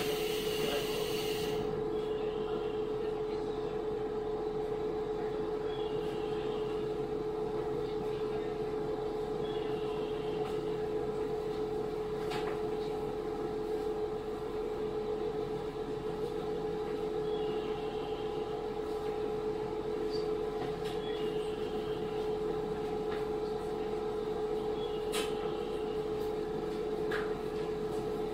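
Cabin sound of a JR KiHa 40 series (2000 subseries) diesel railcar: a steady, even drone of unchanging pitch, with a few faint clicks.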